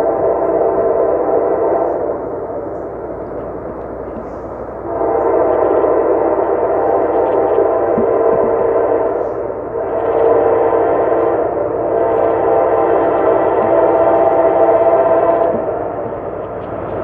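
Freight locomotive horn blowing a series of steady blasts: long, long, short, long. This is the standard signal for a grade crossing ahead.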